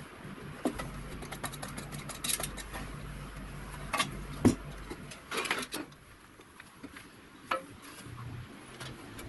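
A thin sheet-metal panel and small parts being handled: scattered light clicks and metallic knocks, the loudest about four and a half seconds in, with a short run of clatter just after it.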